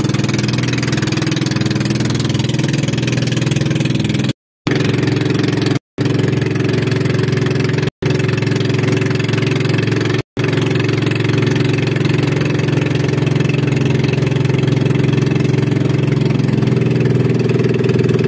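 Pump boat's engine running steadily while the boat is under way, with a steady hiss above it. The sound drops out briefly four times.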